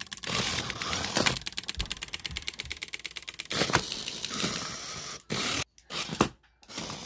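Small remote-control BattleBots toy robots shoving each other on the plastic arena floor, their drives scraping and clicking, with a fast, even run of clicks for a couple of seconds in the middle.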